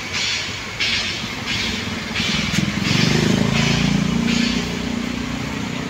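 Footsteps scuffing on a rough surface about every 0.7 seconds, while a road vehicle's engine passes close by, its hum coming in about two seconds in and becoming the loudest sound.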